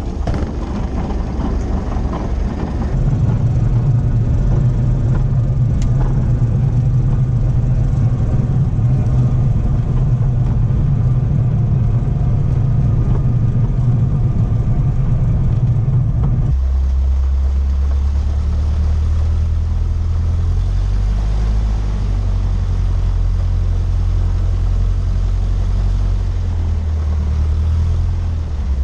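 A Cessna 152's four-cylinder Lycoming O-235 engine and propeller droning steadily, heard from inside the cockpit. The drone grows louder about three seconds in, and its low note drops abruptly a little past halfway.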